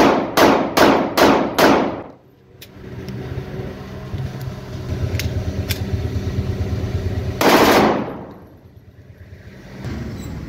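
Pakistani-made 30 bore pistol test-fired as a newly finished gun: five shots in quick succession, about two a second, then a single sixth shot about six seconds later.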